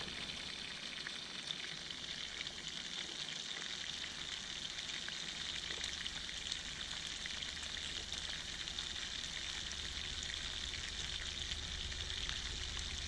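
Pieces of meat just starting to fry, sizzling steadily, with small pops and crackles scattered through the sizzle.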